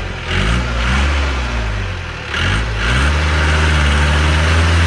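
Four-wheel-drive vehicle's engine revving up twice, then held at steady high revs as it pulls over rough ground.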